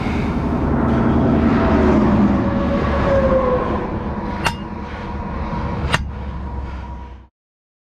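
A vehicle running, with a steady rumble and a slowly shifting drone, and two sharp clicks about a second and a half apart in the second half. The sound cuts off suddenly near the end.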